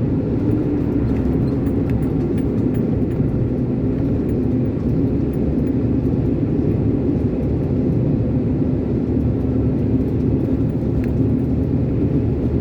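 Steady drone of an Iveco concrete mixer lorry's engine and drivetrain heard from inside the cab, mixed with tyre and road noise, while coasting downhill off the accelerator.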